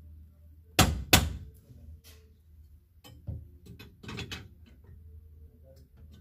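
Clothes hangers clacking against a metal display rail as garments are handled and rearranged. Two sharp clacks come close together about a second in, followed by lighter scattered clicks.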